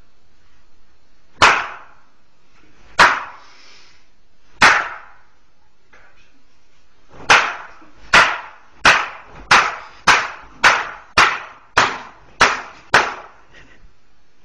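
Sharp smacking blows, like slaps, ringing briefly in a small room: three spaced ones, then a quicker run of about ten, roughly one and a half a second.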